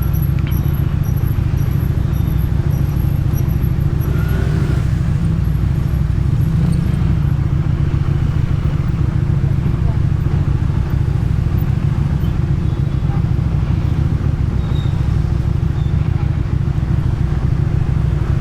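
Motorcycle engine and exhaust running at a steady, even pace while riding, with no revving or gear changes.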